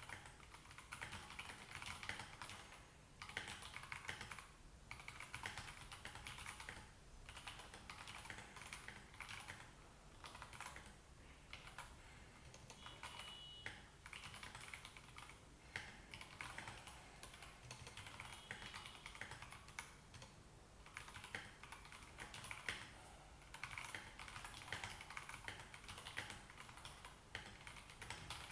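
Typing on a Royal Kludge RK84 mechanical keyboard with Gateron Yellow linear switches and thick XDA-profile PBT keycaps: a steady run of keystrokes broken by short pauses every second or two.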